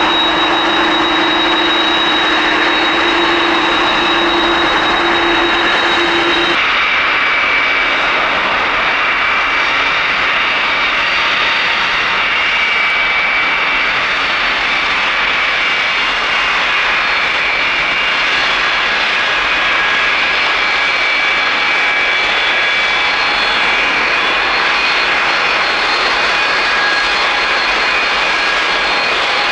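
Jet airliner engines, loud and steady, with a roar carrying a high whine on top. About six and a half seconds in, the sound changes abruptly to a different roar and whine pitch.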